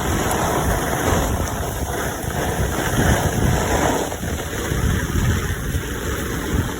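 Steady rain falling, an even hiss, over a low rumble.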